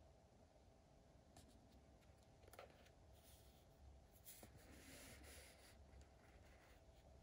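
Faint rustling and rubbing of fingers handling a cardboard box, with a light tap about two and a half seconds in and a longer rub as the box is turned near the middle.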